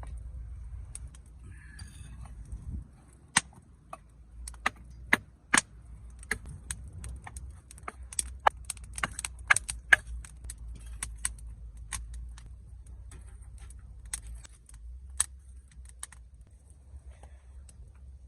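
A long run of sharp, irregular clicks and cracks, a few much louder than the rest, thickest around the middle, over a low steady rumble.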